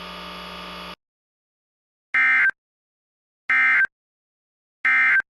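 Emergency Alert System end-of-message signal: three short, identical bursts of screechy digital data tone, about a second apart, closing the alert. A steady buzzing background under the alert cuts off about a second in, before the bursts.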